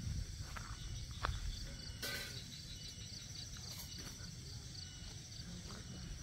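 Insects chirping in a steady pulsing rhythm, about four pulses a second, over a low rumble, with a few faint knocks in the first two seconds.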